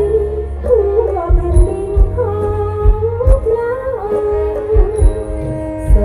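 Live band music with a sliding lead melody over heavy bass and scattered drum hits, heard from the audience at a distance.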